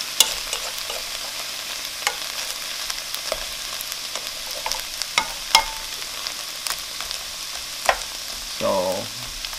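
Shrimp and chopped onion sizzling in a nonstick wok as a spatula stirs them, with sharp clicks each time the spatula knocks against the pan.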